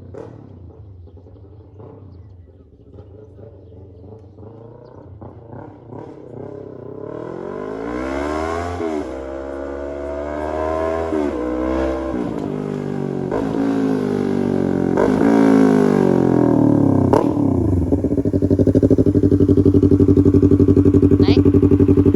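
Yamaha R3's 321 cc parallel-twin engine, fairly quiet at first, then revved up and dropped back several times, getting louder. It settles into a loud steady run near the end.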